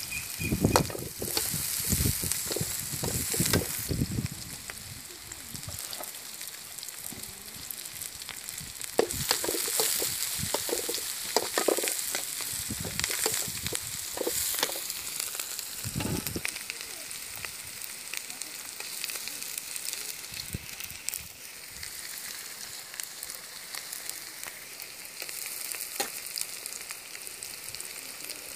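Sliced onions sizzling steadily in hot oil in an aluminium kadai, with a slotted metal spoon stirring and scraping against the pan. A few low thumps come in the first few seconds and again about sixteen seconds in.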